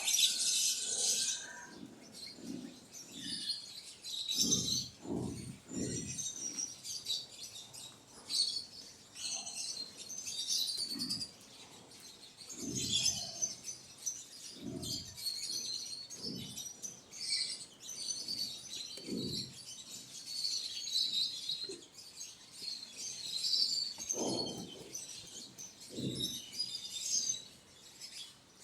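Birds chirping steadily and densely, with repeated short low thumps and knocks through the chirping.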